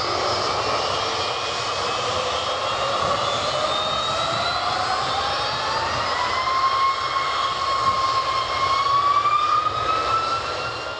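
Jet airliner engines spooling up under power: a loud steady rush with a whine that climbs slowly in pitch, beginning to fade out at the very end.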